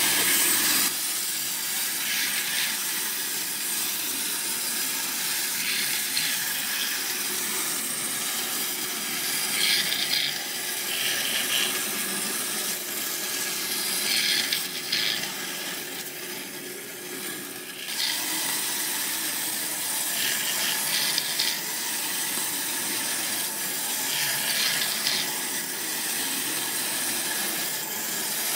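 Two Capsule Plarail wind-up toy Shinkansen trains running on plastic track. Their clockwork gears whir and their wheels rattle on the plastic rails in a steady hissing noise that swells and fades every few seconds.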